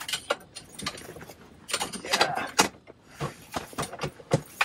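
Irregular knocks, clatter and rustling, loudest about two seconds in, as a lake trout is scooped out of the ice-fishing hole and handled.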